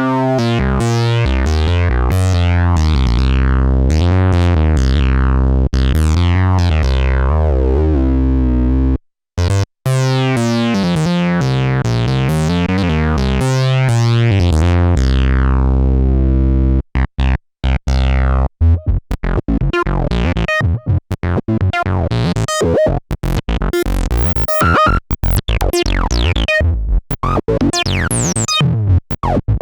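Korg monologue analog monophonic synthesizer playing factory presets. First comes a stepped bass sequence whose bright upper tones sweep as the filter opens and closes, with a brief stop about 9 seconds in. From about 17 seconds it changes to a choppy patch of short, staccato notes.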